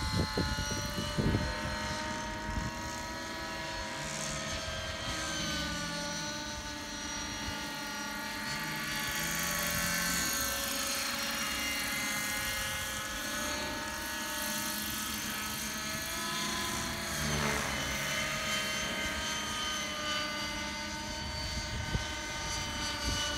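Radio-controlled model helicopters flying overhead: a steady high-pitched whine from their motors and rotors that slowly rises and falls in pitch as they manoeuvre.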